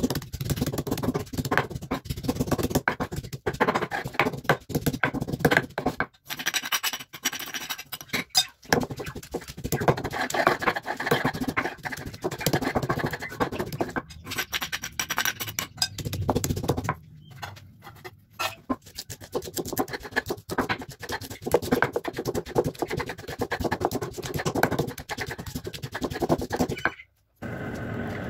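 Stone pestle crushing and grinding shallots, garlic and spices on a flat stone mortar (cobek and ulekan): a rapid run of stone-on-stone knocks and scrapes, pausing briefly a few times.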